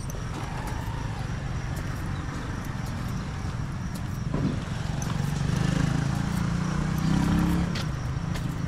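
Street traffic: a motor vehicle's engine hum swells, loudest about five to seven and a half seconds in, over scattered light clicks and taps.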